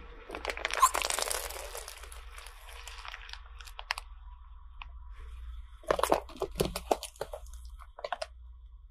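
A car tyre slowly crushing a plastic bottle packed with gel water beads: the plastic crackles and crunches as it gives way, loudest about a second in. Around six to seven seconds in there is a second run of sharp cracks and pops as the tyre rolls over more beads, with a low steady rumble underneath.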